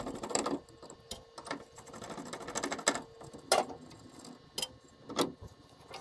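Screwdriver turning out the small screws of the metal plate on a K40 CO2 laser cutter's head: scattered light metallic clicks and ticks, with a few sharper clicks in the second half.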